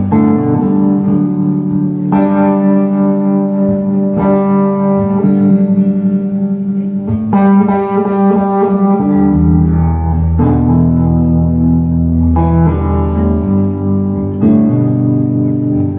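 Telecaster-style electric guitar ringing out sustained chords, changing about every two seconds. A deep low note sounds beneath the chords for a few seconds in the middle.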